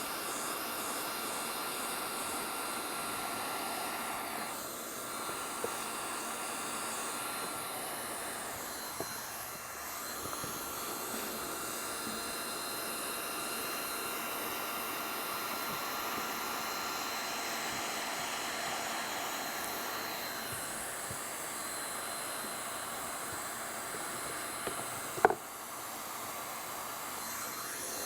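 Hand-held hot-air roofing heat gun running with a steady hiss and a faint whine while heat-welding a thermoplastic roofing membrane, its tone shifting a little as it is moved. A single sharp click about 25 seconds in.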